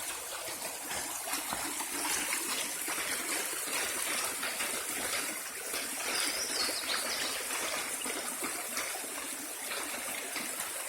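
Shallow stream trickling and babbling steadily over its bed.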